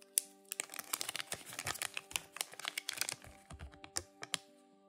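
A small folded paper leaflet from a Kinder Surprise egg being unfolded by hand close to the microphone: a rapid run of crisp crinkling crackles that stops a little before the end.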